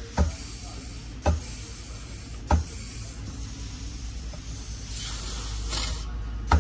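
Compressed-air check of a 6L80 transmission's 1-2-3-4 clutch circuit: sharp thuds as air is blown into the passage and the clutch piston applies, three about a second apart, then after a pause a short hiss of escaping air and a fourth thud. The check is for an air leak in the clutch's seals.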